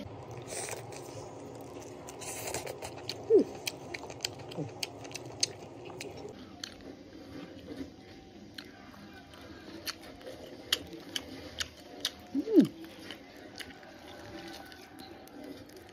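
Close-up chewing and biting into grilled chicken: wet mouth clicks, smacks and tearing of meat, repeated irregularly, with two short hums from the eater at about 3 seconds and 12 seconds in.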